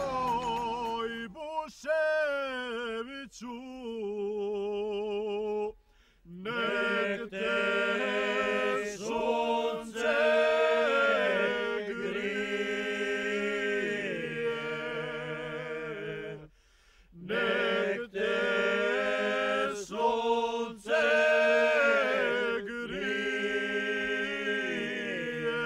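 Unaccompanied singing in a slow, chant-like style. It has long held, wavering notes and comes in phrases, with short breaks about six and seventeen seconds in.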